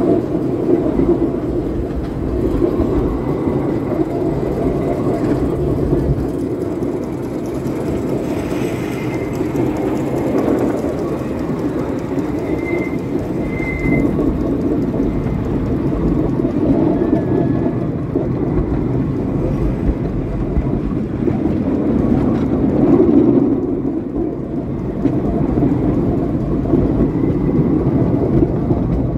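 Miniature railway train running steadily along its track, with a continuous rumble of wheels on rail heard from a passenger car riding on the train.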